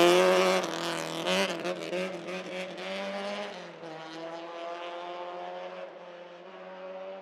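Rally car engine pulling away, loud at first, its note shifting as it goes and fading steadily into the distance.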